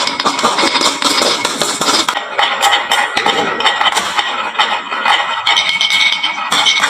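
Many glass marbles clattering down a wooden marble run slope: a dense, continuous stream of rapid clicks and clinks as they knock against the wood and each other.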